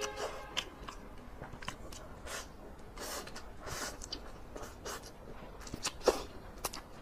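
Close-miked eating of spicy instant noodles: wet slurping as strands are sucked into the mouth, with chewing and smacking clicks. There is a longer slurp about three to four seconds in, and a sharper, louder slurp near six seconds.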